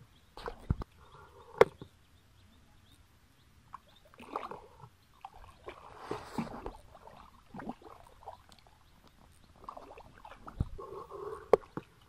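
Gloved hands and legs wading and groping through shallow muddy water: intermittent sloshing and squelching, with a few sharp clicks.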